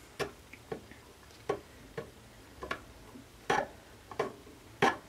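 Small metal eye hook being turned into a wooden board with a screwdriver pushed through its eye as a lever: a string of sharp metal clicks and clacks, one about every half second to second, as the screwdriver knocks against the hook with each turn.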